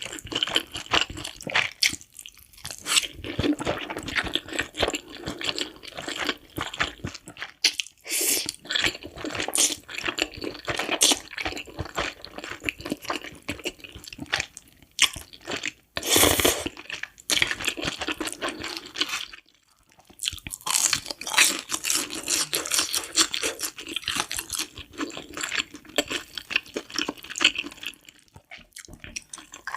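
Close-miked crunching and chewing of fried cheese sticks, in long crackly bursts broken by a few short pauses.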